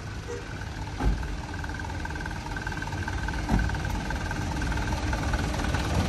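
Steady low rumble of an idling truck engine, with two dull thumps about a second in and about three and a half seconds in.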